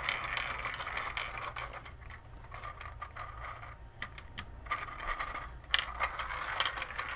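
Hand-cranked 3D-printed plastic marble machine: its gear and lifting screw scraping and clicking as steel ball bearings rattle up through it. The clicking eases off for a stretch near the middle, then comes back with a few sharper clicks.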